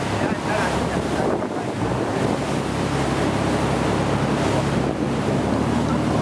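Choppy sea splashing and rushing along the hull of a moving sightseeing boat, with wind buffeting the microphone and the boat's engine humming steadily underneath.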